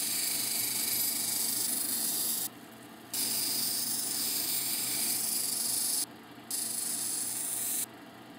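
A tiger eye cabochon on a dop stick ground against a wet diamond wheel on a lapidary cabbing machine: a hissing grind that comes three times, each a few seconds long with short breaks as the stone is lifted off, over the steady run of the machine. This is the rough shaping of the stone's curved top.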